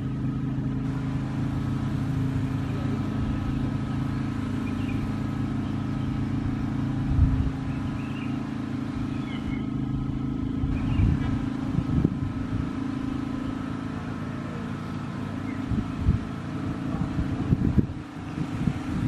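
A train approaching along the track, with a steady low drone. Irregular low thumps come in from about seven seconds on and grow more frequent near the end.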